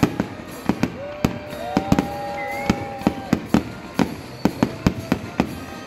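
Aerial fireworks display: a rapid, irregular string of sharp bangs and crackles from bursting shells. About a second in, a steady two-note tone sounds under the bangs for about two seconds.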